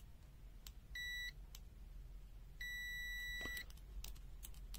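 Antelves AN109 multimeter's continuity buzzer beeping as its probe tips touch, signalling a closed circuit between the leads. There is a short beep about a second in, then a longer one lasting about a second, each a steady high tone, with light clicks of the probe tips tapping together.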